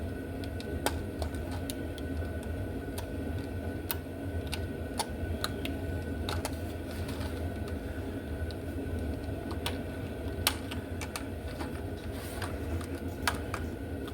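Scattered light clicks and taps of small tools on a slot car motor as the pinion gear is worked off the armature shaft, over a steady low hum.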